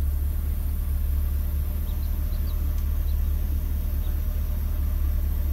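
Two Skar Audio VXF12 subwoofers, driven by a Taramps MD 8000.1 amplifier, playing a continuous 40 Hz sine test tone as a steady deep hum. It is the tone used to set the amplifier's gains for maximum clean output.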